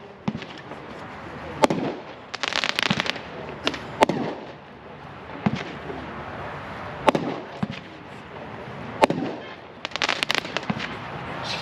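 A 500-gram, 51-shot consumer firework cake firing: sharp single bangs about every one and a half to two seconds, with two stretches of rapid crackling, one near the start and one near the end.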